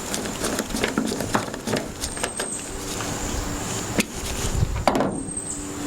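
Scattered clicks and knocks of a truck's fuel filler neck assembly being handled and fitted into its mounting holes, with two sharper knocks about four and five seconds in.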